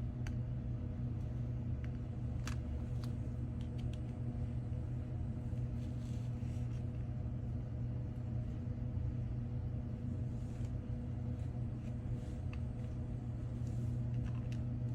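Steady low electrical hum from bench equipment, with a few faint clicks from hand tools.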